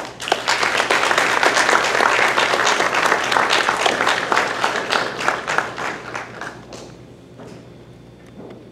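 Audience applauding: dense clapping that thins out and fades about two-thirds of the way through.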